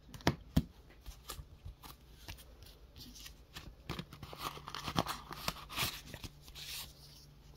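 Paper mailing envelope picked up and handled, its paper rustling and crinkling, with light clicks and taps of plastic card holders on the table. Two sharp clicks within the first second are the loudest sounds.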